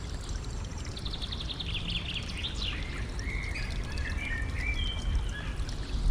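A stream trickling steadily. Over it a songbird sings: a fast trill about a second in, then a few sliding notes, then a run of warbled phrases that ends shortly before the close.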